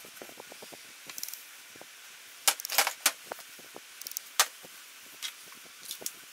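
Handling noise at a workbench: a metal hatchet, small tools and a wooden block being picked up and set down, giving scattered light clicks and knocks, with a louder cluster about halfway through and a single sharp knock a little later.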